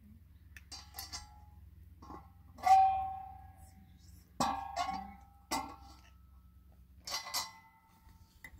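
Metal cookware clinking and ringing: an iron saj griddle is lifted off the fire and set back, with several sharp clanks that each ring on briefly, the loudest about three seconds in.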